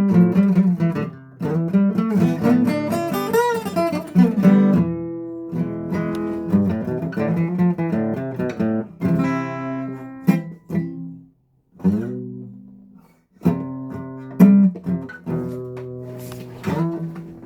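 Acoustic guitar strummed and picked in simple chords, stopping for about two seconds partway through before the playing starts again.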